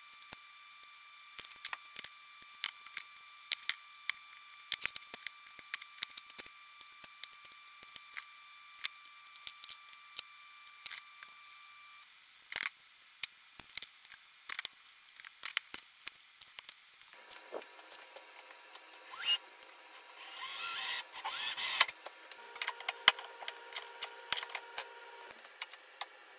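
Scattered light clicks and knocks of PVC pipe and fittings being handled, cemented and pushed together, with a louder rough rasping of about two seconds some three quarters of the way through.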